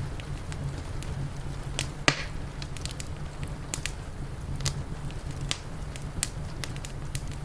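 Wood fire crackling, with irregular sharp pops, the loudest about two seconds in, over a steady low rumble.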